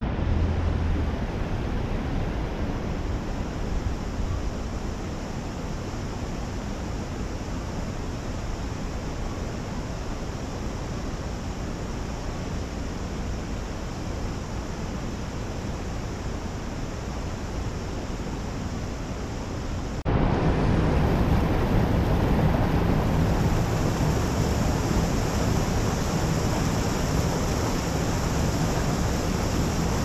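Rushing water of a mountain spring stream, a steady noise with no let-up. About two-thirds of the way through it abruptly becomes louder and fuller.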